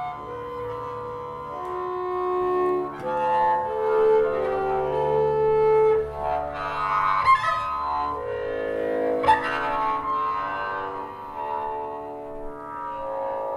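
Two double basses bowed at once in free improvisation: long overlapping tones that slide and shift in pitch. Two sharp strikes cut through, about seven and nine seconds in.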